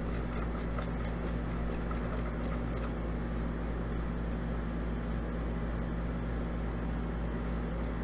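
Ratcheting service wrench clicking rapidly, about five clicks a second for roughly the first three seconds, as it turns an R410A condensing unit's liquid line service valve down toward front-seat. Under it, the running condensing unit hums steadily.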